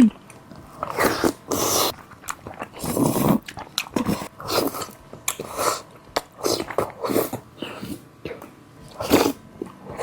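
Close-up eating sounds: irregular biting and chewing with mouth noises, in short uneven bursts.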